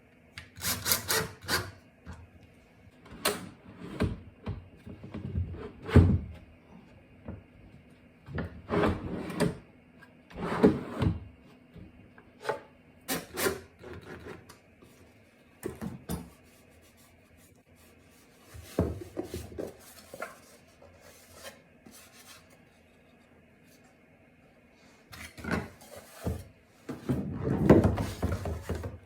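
Rubbing and scraping on wood in short clusters of strokes, with quiet gaps between them.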